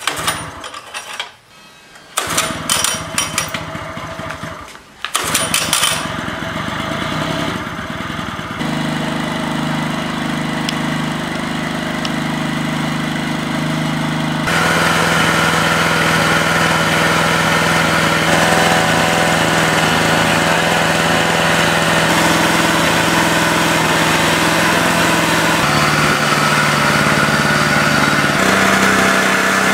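Yamaha ET900 portable generator being pull-started: a couple of sharp yanks on the recoil starter, then the engine catches about five seconds in and settles into a steady run. Its engine note steps up and down slightly a couple of times near the end.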